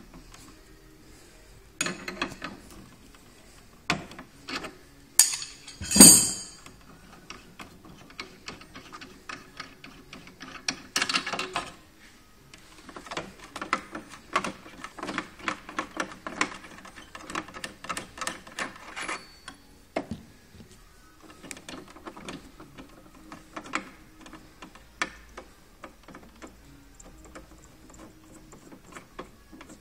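A spanner and the brass fittings of a Nuova Simonelli Oscar espresso machine's steam valve clicking and clinking as the valve is worked loose and taken out through the front panel, with one sharp knock about six seconds in.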